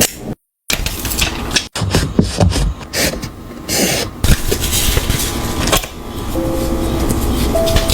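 Paper and stickers being handled and pressed onto a journal page: irregular rustling, rubbing and light tapping, broken by an abrupt cut to silence about half a second in.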